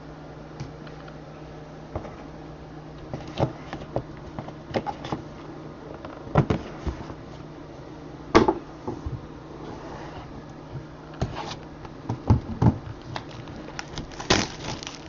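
Scattered short clicks and light knocks, irregularly spaced and a little busier in the second half, over a steady low electrical hum.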